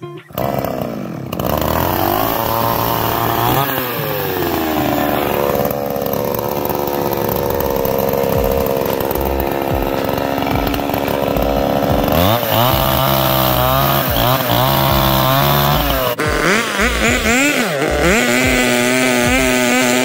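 Petrol two-stroke chainsaw starting up, then revved up and down repeatedly. In the last few seconds its engine speed dips and recovers again and again as it cuts through thin timber poles.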